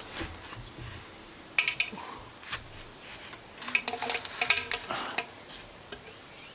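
Steel chain links and hook clinking and rattling as the chain of a shade sail is handled and hooked onto a fixture on a wooden post. The metallic clinks come in a few clusters, the busiest about four to five seconds in.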